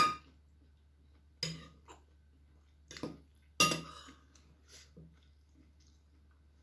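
Metal fork and spoon clinking against a ceramic dish: about half a dozen sharp clinks with a brief ring, the loudest about three and a half seconds in.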